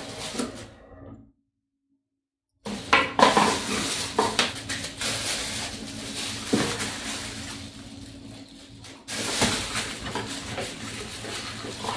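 Clear plastic wrapping and bubble wrap crinkling as items are unpacked from a cardboard box, with light clinks and knocks of hard kitchen-appliance parts. The sound cuts out completely for about a second near the start.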